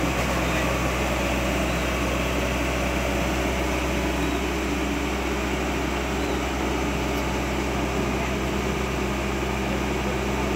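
Diesel engine of a Caterpillar 120B excavator running steadily, a constant hum with no revving or pauses.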